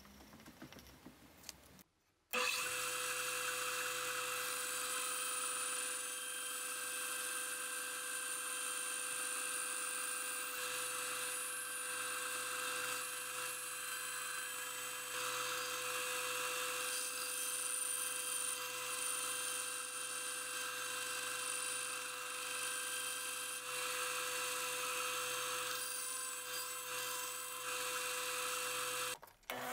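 Band saw running steadily and cutting through a small wooden block, a constant hum with a high whir. It starts after a couple of seconds of faint pencil scratching and stops abruptly near the end.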